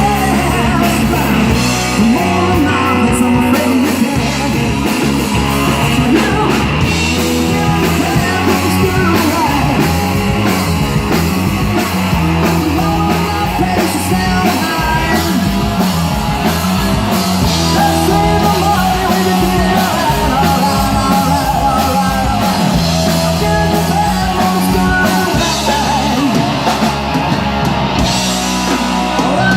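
Loud rock music: a band playing a hard rock song with a sung vocal over drums and guitar, continuing steadily without a break.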